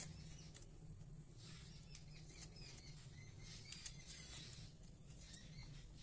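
Near silence: faint outdoor background with a few scattered soft ticks.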